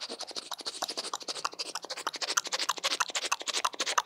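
Vocal mimicry of a train running with a horse galloping alongside, made with the lips, tongue and a hand cupped over the mouth: a fast, even run of clicking chuffs.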